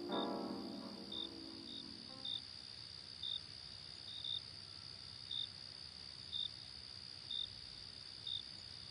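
Crickets chirping at night: a steady high trill with a short, sharper chirp about once a second. A few sustained music notes fade out in the first two seconds.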